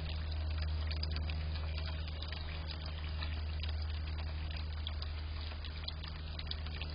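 Water trickling and splashing in a bird bath, with many small ticks, over a steady low hum.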